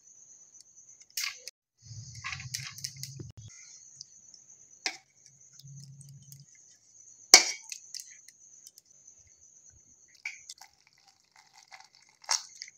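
Hands scooping wet soaked rice and urad dal into a stainless steel mixer jar, with soft squishing and occasional clinks and knocks of steel vessels. The loudest is a sharp clink about seven seconds in, and water is poured into the jar near the end.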